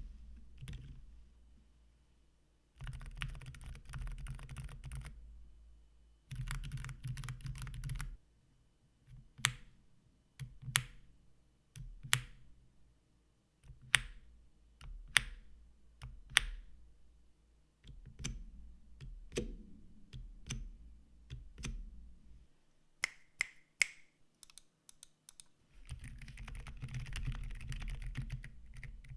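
Silent tactile mechanical keyboard switches being pressed. Bursts of fast typing alternate with single, spaced keystrokes.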